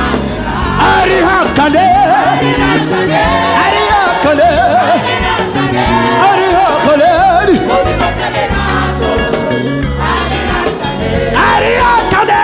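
Live gospel worship music: a male lead singer sings with wavering held notes over a full band with drum kit, loud and steady.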